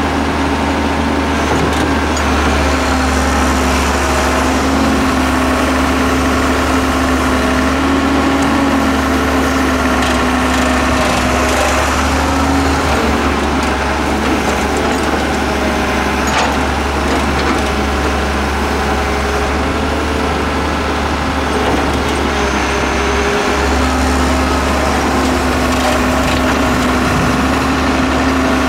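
Hyundai Robex 1300W wheeled excavator's diesel engine running steadily under hydraulic load while it digs and swings sand, with a droning tone that shifts in pitch, fades in the middle and comes back near the end, over gritty scraping noise.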